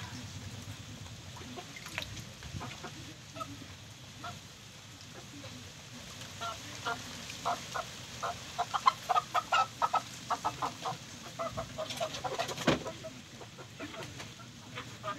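Chickens clucking, with a quick run of short clucks through the middle and a sharp knock near the end.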